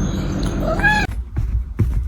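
A cat meows once, a short call that rises and then falls in pitch, just past halfway. The sound then cuts abruptly to a run of sharp knocks.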